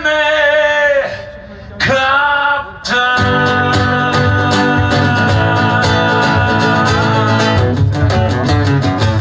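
A man singing to his own guitar accompaniment. Two short sung phrases are followed, about three seconds in, by a long held note over steady, rhythmic strumming.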